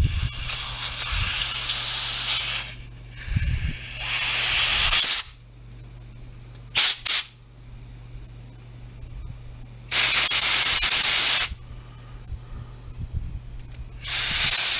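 Compressed air from an air-hose blow gun hissing in short blasts as it blows out lawn mower carburetor parts to clear any debris: a long blast at the start, another that swells a few seconds in, two quick puffs, then two more blasts of about a second and a half each.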